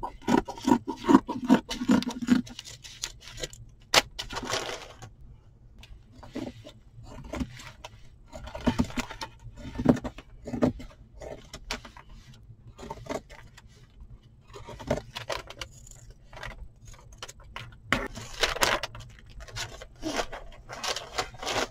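Scissors snipping through felt near the start, then irregular rustles, scrapes and light taps as felt pieces are handled and smoothed on a cutting mat.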